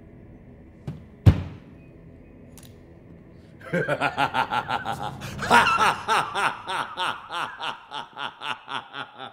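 A single sharp thunk about a second in, then a long run of laughter from about four seconds in, about four 'ha' pulses a second, slowly fading.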